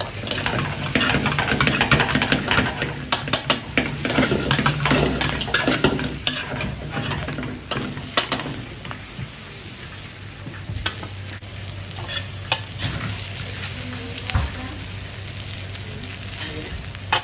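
Shell-on prawns, fried garlic and spring onion sizzling in a hot wok while a metal spatula scrapes and tosses them. The scraping is busy through the first half, then eases to a steadier sizzle with an occasional scrape.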